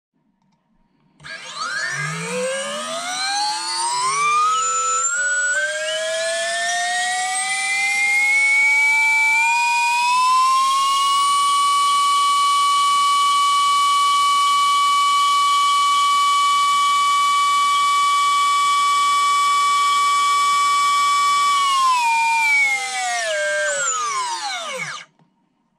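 BrotherHobby Speed Shield 2207.5 3400kv brushless motor, driven from a 5S LiPo, spinning up from a standstill: its whine climbs steadily in pitch over about ten seconds, holds at a high, steady pitch at about 76,000 rpm, then drops as the motor spins down and stops near the end.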